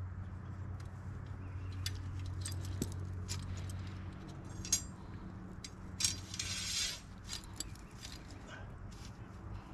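A steel 330 body-grip beaver trap and its chain clinking and rattling as it is handled and reset, a string of sharp, irregular metallic clicks. A short rush of noise comes about six seconds in.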